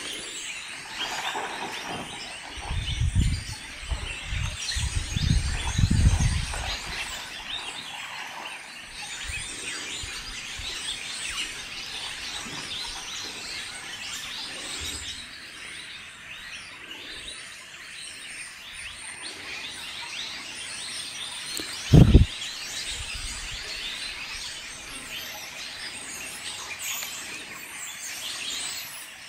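Many wild birds chirping and calling in a continuous outdoor chorus. A few low rumbles come in the first several seconds, and a single brief low thump about 22 seconds in.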